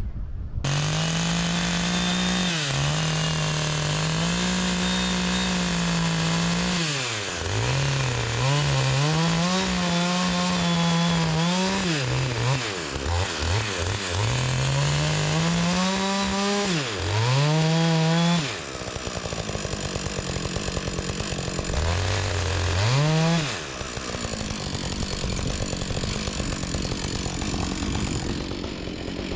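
Chainsaw running at high revs and cutting into a log, its engine note dipping and recovering several times under load. About 18 seconds in it drops back toward idle, with one short rev a few seconds later.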